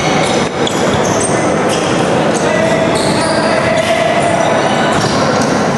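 Basketball being dribbled and bouncing on a gym court while players run, their sneakers on the hardwood, with a steady din of voices in the large hall.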